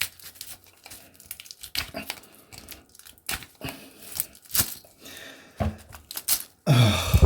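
Copper windings being pushed and pried out of a compressor motor stator that has been cut in half: irregular clicks, scrapes and crinkling of wire against the steel, ending in a louder tearing rasp near the end as the windings come free.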